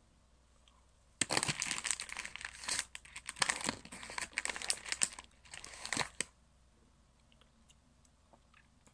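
Crinkly jelly bean packaging rustling and crackling as a hand rummages through it for a bean. It starts about a second in and stops after about six seconds.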